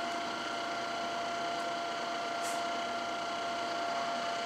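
1977 Ikeda RM-1375 radial arm drill running with its spindle at 250 RPM, driven by its 7.5 hp main motor: a steady whine with a fainter, higher overtone over a running hum.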